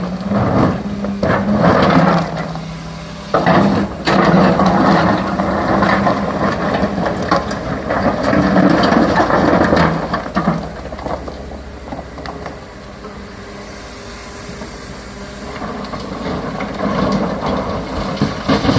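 CAT 320 hydraulic excavator working: its diesel engine runs under load, with clattering knocks and scraping of rock and metal as it digs. It eases off a little past the middle and picks up again near the end.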